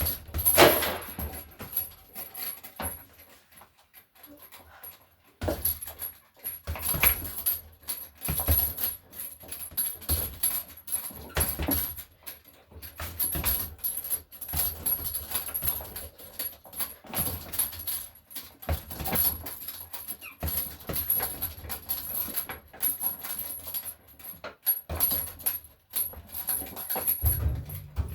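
A dog whimpering among irregular knocks and clattering.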